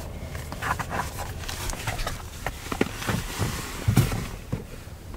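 Handling noise in a car's glove box: soft irregular knocks and rustles as booklets are put away, with a sharper click about four seconds in as a hand takes hold of the glove box lid.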